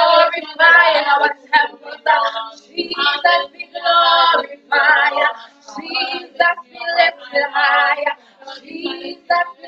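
A woman's voice singing a worship song in short phrases.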